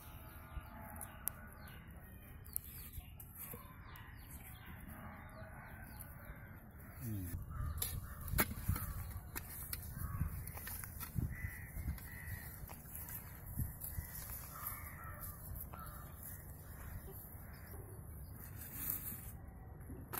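Crows cawing again and again in the background. From about seven seconds in come knocks and scrapes of a stick working against a clay pot as roasted palmyra sprouts are levered out.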